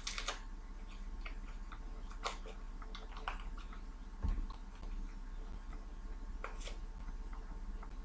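Small paper sachets of vanilla powder being torn open and handled, crinkling and crackling in short irregular bursts, with one dull knock about four seconds in over a steady low hum.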